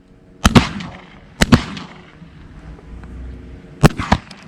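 Shotgun shots at doves overhead, in sharp close pairs: two about half a second in, two more about a second later, and another two or three near the end.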